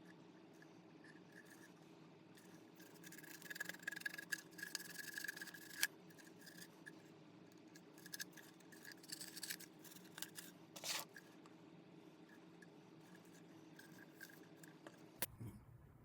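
Faint scratchy rubbing and scraping in irregular bursts, with a sharp click about six seconds in, over a steady low hum.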